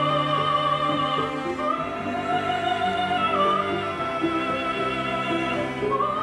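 Background music: operatic classical singing, long held notes with vibrato, over an orchestral accompaniment.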